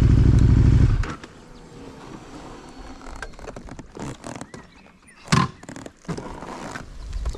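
KTM 1290 Super Duke R's V-twin engine running steadily, then cutting off suddenly about a second in as it is switched off. After that there are only faint scattered background sounds, with one short, loud sound a little past halfway.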